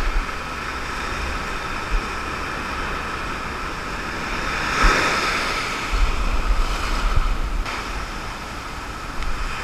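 Ocean surf washing up a sandy beach, one wave surging in about five seconds in, with wind rumbling on the microphone soon after.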